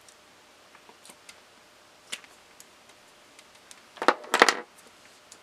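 Faint scattered clicks of lips pressing together over freshly applied lip cream, then a brief, louder rustle in two quick bursts about four seconds in.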